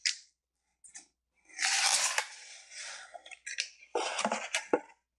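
Cardboard shipping box being opened by hand: rustling, scraping and crackling of the cardboard flaps and packing, in several short bursts with a longer one about two seconds in and a cluster of sharp crackles near the end.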